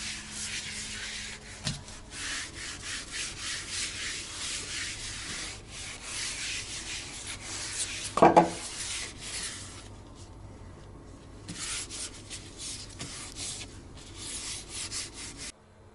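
A cloth dampened with OxiClean solution rubbed by hand across a smooth toilet-room floor, in a run of quick wiping strokes with a short pause a little after the middle. About eight seconds in, a brief, louder pitched sound stands out.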